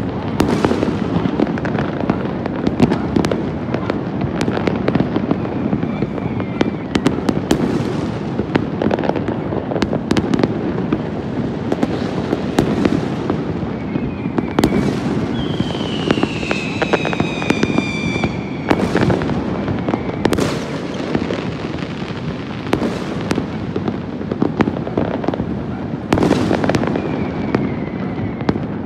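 Many fireworks going off at once across a city: a continuous wash of bangs, pops and crackle with no pause. About halfway through, a whistle falls in pitch for a few seconds.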